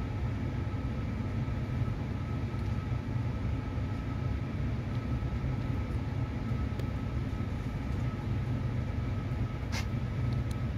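Steady low hum of a stationary E6 series Shinkansen car's interior, from its air conditioning and onboard equipment, with a faint steady whine above it. A brief click sounds near the end.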